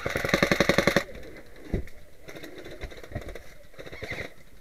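Airsoft electric rifle firing a full-auto burst of about a second, roughly fourteen shots a second. It is followed by quieter knocks and rustling of players moving, with a thump a little under two seconds in.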